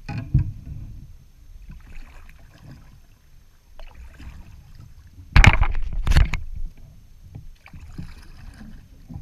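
Kayak paddling: soft paddle strokes and water sloshing, with hard knocks on the kayak. A sharp knock comes just after the start and two loud knocks come about five and six seconds in.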